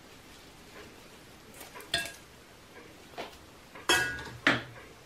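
A metal spoon clinking against a ceramic plate a few times, the two loudest clinks about half a second apart near the end, one with a short ring.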